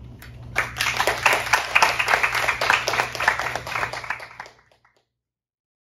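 A small audience applauding, many quick overlapping claps starting about half a second in and dying away near the end. A steady low hum runs under it.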